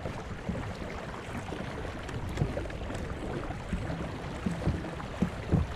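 Water swishing along a moving pedal kayak's hull, with wind buffeting the microphone in irregular low thumps that grow stronger near the end.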